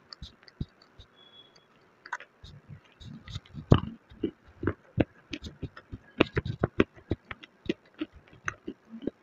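Biting and chewing a chunk of white khadi, an edible chalky clay: a dense run of dry crunches that starts about two seconds in, the loudest near four seconds.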